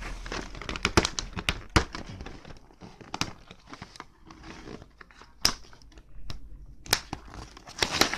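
Plastic action-figure packaging crinkling and tearing as it is opened by hand, with a run of sharp clicks and snaps, busiest in the first couple of seconds and sparser after.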